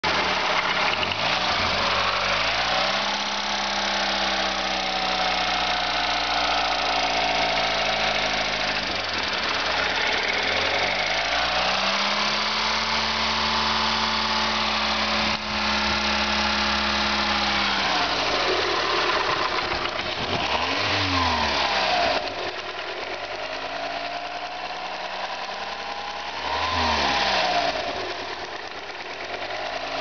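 Volkswagen Golf Mk4 1.4 16V four-cylinder petrol engine running, revved up and held steady for several seconds twice, then blipped briefly a few times near the end. The owner questions its sound as a possible fault.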